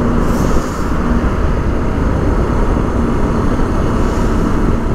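Royal Enfield Himalayan motorcycle under way: steady wind rush on the microphone over the running single-cylinder engine.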